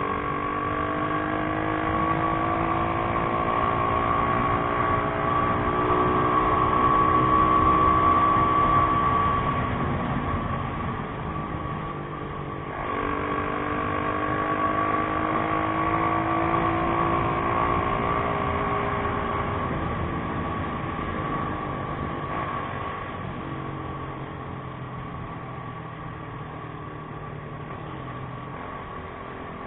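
Motorcycle engine running under way, its pitch climbing as the bike accelerates, dropping suddenly about 13 seconds in as it shifts up, then climbing again before easing off to a lower, steadier note after about 20 seconds.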